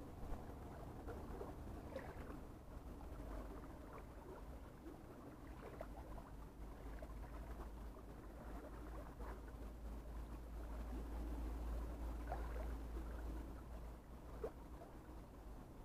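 Faint seashore sound: a steady low rumble with scattered small splashes and ticks of water at the rocks.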